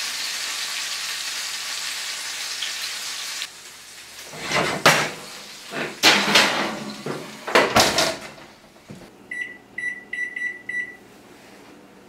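Meatloaf sizzling in hot oil in a cast-iron skillet, cut off suddenly about three and a half seconds in. Then several loud clunks and clatters as the oven door opens and the cast-iron skillet goes onto the oven rack, followed by five short beeps from the microwave's keypad as a timer is set.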